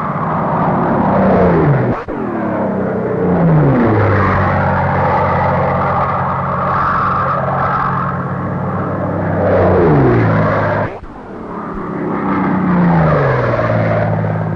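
Curtiss Tomahawk fighters' Allison V-12 engines flying low past one after another. The engine pitch drops each time one goes by, with the steady drone of engines in between.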